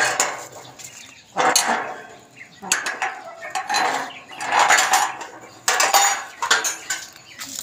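Metal jingling and clinking in about five short bursts with quieter gaps between, like small metal pieces being shaken or handled.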